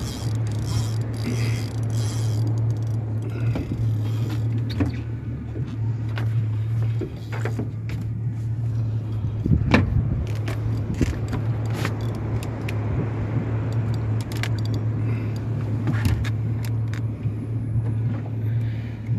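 Fishing boat's outboard motor idling with a steady low hum, with scattered light clicks and knocks over it.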